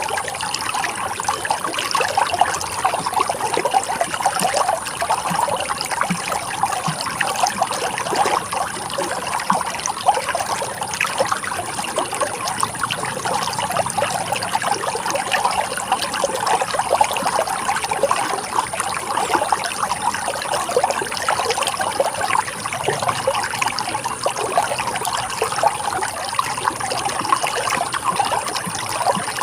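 Running water trickling and splashing steadily, a dense even rush with no pauses.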